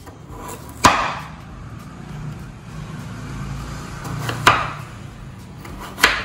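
Kitchen knife cutting a peeled potato into large pieces on a bamboo cutting board: three sharp knocks of the blade striking the board, a few seconds apart.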